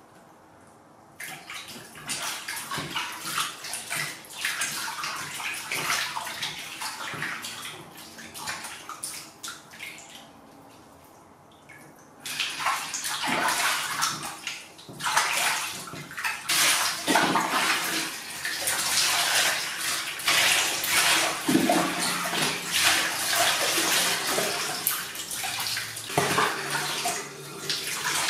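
Water splashing and sloshing in a plastic basin as a kitten is washed by hand in pre-drawn bathwater. It is irregular throughout, quieter for a stretch in the middle and louder and busier from about halfway on.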